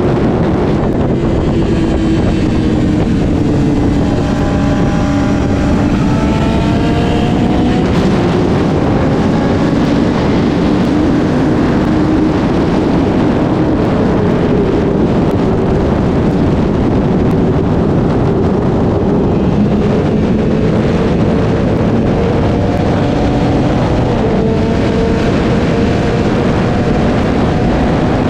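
Sport motorcycle engine running under way, its pitch dropping and then climbing again several times as the bike slows and accelerates, under heavy wind rush on the microphone.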